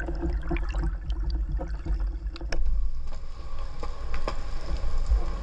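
Underwater sound picked up by a diver's camera in its housing: a steady deep rumble of moving water, with bubbling and scattered sharp clicks and crackles.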